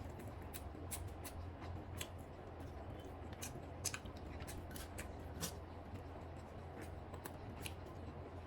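A person chewing chicken biryani close to the microphone: scattered, irregular sharp mouth clicks and smacks over a steady low hum.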